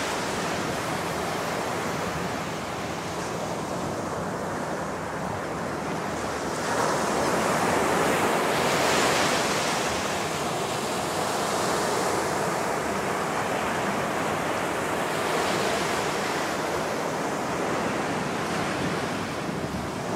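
Ocean surf washing onto a beach, a steady rush of breaking waves that swells about seven seconds in.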